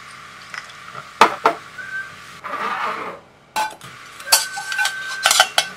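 A stainless steel mixing bowl knocking and clinking against a stainless steel counter, with several sharp clinks and a short scraping rustle. After one knock past the middle, the bowl rings with a steady tone for about a second.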